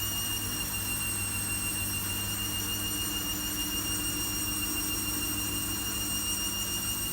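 Logik L712WM23 washing machine running, its motor giving a steady high whine over a constant low hum.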